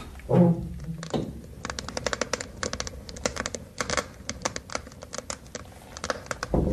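Wood being put on a fireplace fire: a dull knock just after the start, then many quick, irregular clicks and crackles.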